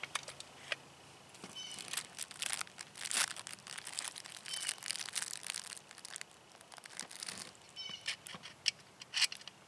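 Plastic packaging crinkling and rustling as small parts are handled, with scattered light clicks and knocks and a few brief high squeaks.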